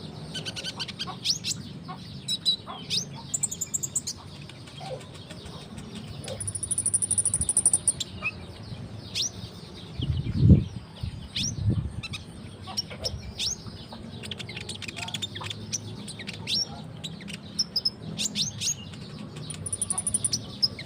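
Olive-backed sunbird (kolibri ninja) singing actively: a stream of sharp, high chirps sweeping downward, with a fast, very high trill about seven seconds in and again near the end. A loud low thump about ten and a half seconds in.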